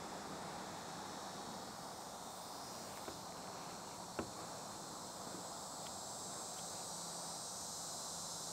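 Steady chirring of insects, with a faint click about three seconds in and a slightly sharper one about four seconds in.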